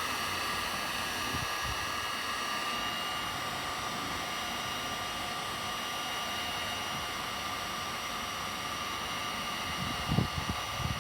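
Electric heat gun running steadily, blowing hot air over scratched plastic to melt the surface smooth. A few short low knocks near the end.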